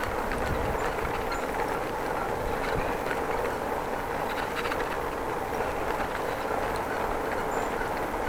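Bicycle being ridden: the steady rolling noise of tyres on the road, with faint scattered ticks and rattles from the bike.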